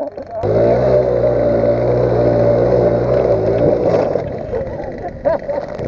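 Small 50cc scooter engine at full throttle, a steady high-revving buzz that cuts in sharply about half a second in and eases off after about four seconds.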